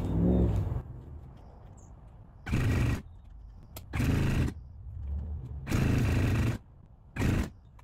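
Kawasaki STX-R 1200 jet ski's two-stroke triple being cranked on its electric starter in four short bursts of under a second each, with pauses between. This is a first start attempt on a freshly installed engine whose fuel is not yet reaching it.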